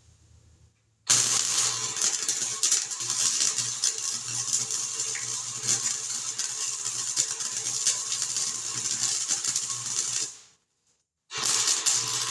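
Arc welding on sheet-metal patch panels: a long, steady crackling weld bead of about nine seconds with a low buzz underneath. Then a short second burst of welding near the end.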